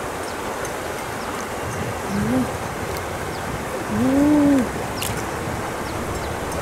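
A woman's voice giving short exclamations of "ui" twice: a brief one about two seconds in and a longer, drawn-out one about four seconds in, over a steady background hiss.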